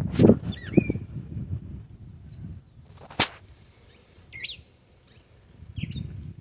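Songbird calls: a few short, high whistled chirps and sweeping notes, spaced a second or two apart. A low rumble is loudest over the first second and comes back near the end, and a single sharp click falls about three seconds in.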